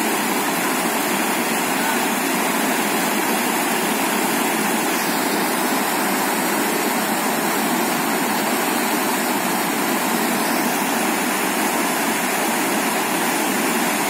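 Orkhon River rapids: whitewater rushing over and around rocks in a steady, even rush of water.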